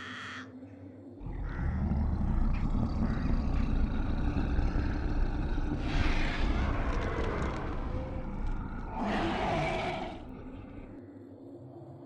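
Heavy rumble of wind and handling noise on a handheld camera's microphone as it is carried on the run, with two louder rushes of noise about six and nine seconds in; the rumble drops away near the end.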